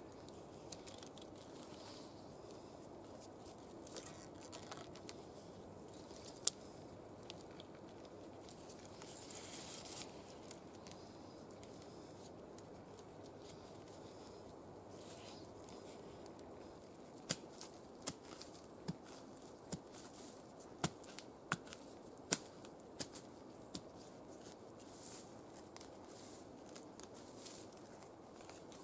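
Cord being wrapped and pulled tight around crossed wooden poles: faint rustling and rubbing of twine on bark, with a run of sharp clicks and snaps about two-thirds of the way through.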